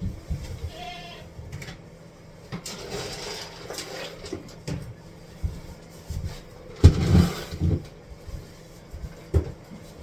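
Goat on a milk stand, with a short bleat about a second in, scattered knocks, and a loud thump with rustling about seven seconds in.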